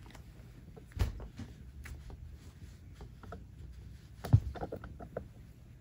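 Handling noise as a posable plush toy is set down and balanced to stand: a soft thump about a second in, a louder thump a little after four seconds, then a few light knocks and rustles.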